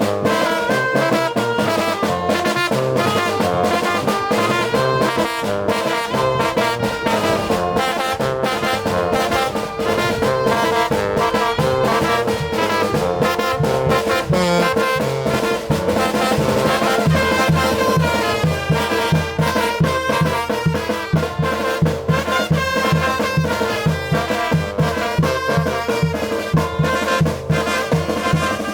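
Mexican brass band (banda) playing a chilena, with trumpets and trombones over a bass line; the low bass notes pulse steadily and more strongly in the second half.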